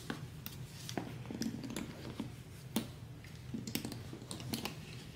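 Light metal clicks and clinks of a strap's swivel snap hooks being handled and clipped onto a purse's metal rings, scattered irregularly.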